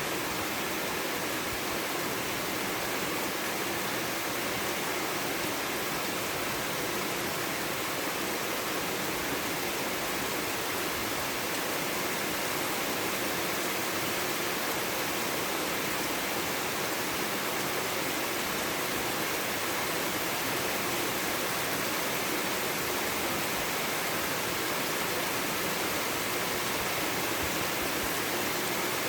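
Steady rain falling, an even hiss without separate drops or drips standing out.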